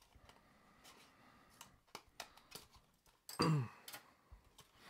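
Scattered small clicks and taps of hands working open a small cardboard model-car box with a tool. About three and a half seconds in, a short vocal grunt falling in pitch.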